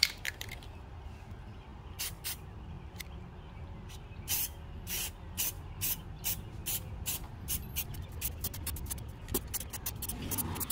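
Aerosol can of primer-and-black spray paint giving many short hisses, a few at first and then about three a second, over a low steady rumble.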